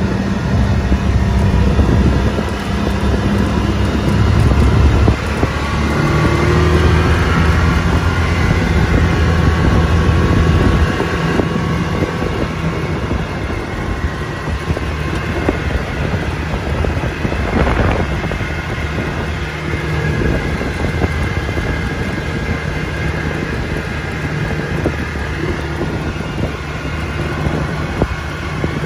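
Can-Am Maverick XMR Turbo side-by-side's turbocharged three-cylinder engine running as it drives along a gravel road, heard from the open cab. Pitch and loudness rise and fall with the throttle; it is louder for the first ten seconds or so, then runs lower and steadier. There is one sharp knock about eighteen seconds in.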